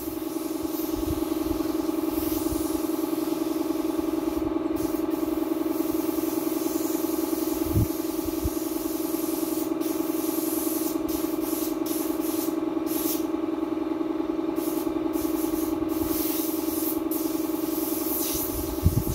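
Air compressor running with a steady hum, while a paint spray gun hisses in spurts, cutting off and starting again several times as its trigger is released and pulled. A dull knock about eight seconds in and another near the end.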